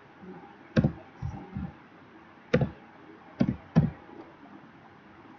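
About six separate sharp clicks at irregular intervals from working a computer's keyboard and mouse.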